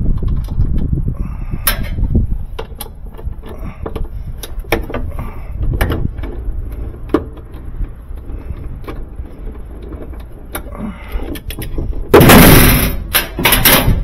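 A socket wrench and metal hand tools clicking and clinking against the drive motor and gearbox of a Kenmore top-load washer as its bolts are worked loose, with knocks and rumbles from handling the parts. A loud, rough burst of noise lasting about a second comes near the end.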